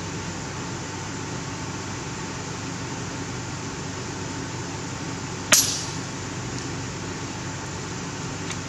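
A .30 calibre FX Impact PCP air rifle fires a single shot, a sharp crack about five and a half seconds in that dies away quickly, over a steady background hiss.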